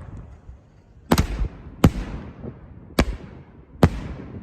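Four sharp bangs of double-play reloadable aerial shells bursting overhead, roughly a second apart, each trailing off in a rumbling echo.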